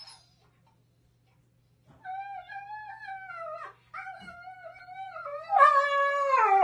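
A dog howling in three long, wavering calls, starting about two seconds in; the last call is the loudest and slides down in pitch.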